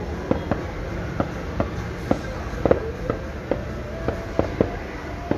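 Aerial fireworks bursting in a quick, irregular run of sharp pops, about three a second, over a low steady background rumble.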